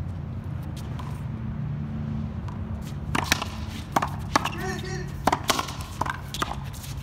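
A racquetball rally: a quick series of sharp cracks as the ball is struck by racquets and smacks off a concrete wall, starting about three seconds in, over a steady low background rumble.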